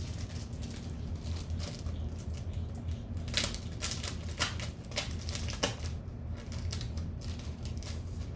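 Crinkling and clicking of a small packet of temporary tattoos being opened and handled: short irregular crackles, loudest between about three and six seconds in.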